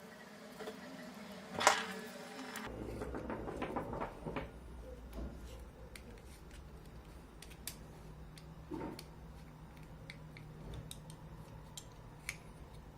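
Small clicks and light metallic taps as a digital caliper and its packaging are handled, with one sharp, loud click just under two seconds in. A low steady hum comes in under it a little before three seconds in.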